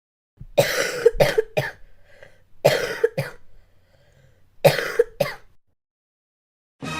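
A person coughing in three fits of a few quick coughs each, spaced a second or two apart. Music starts just before the end.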